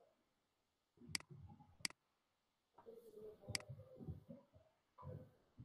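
Near silence broken by a few sharp computer mouse clicks: two about a second in, one midway and one at the end.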